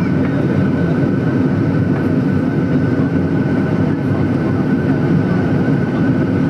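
Steady cabin drone inside a Boeing 737-800 taxiing after landing: engine and cabin air noise, with a thin steady high tone over it.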